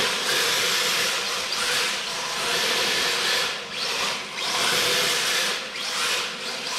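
Electric motor of an MST RC drift car whining as the throttle is opened and eased several times, with the hard drift tyres hissing as they slide across a tiled floor.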